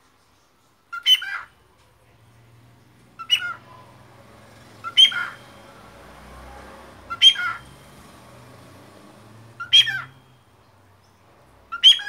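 Cockatiel giving six short, sharp chirping calls, roughly two seconds apart.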